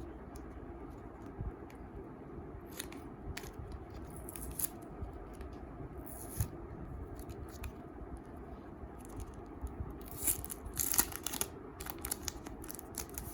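Hands cutting and peeling open the wrapping of a photocard: scattered scissor snips and tearing of packaging. The sounds are busiest about ten to eleven seconds in, over a faint steady hum.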